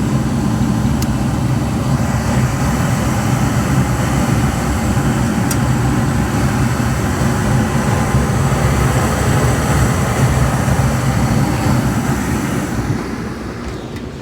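York gas-fired rooftop unit running in heat mode at high fire: a steady mechanical hum with an even rush of air from its fans. It eases off a little near the end.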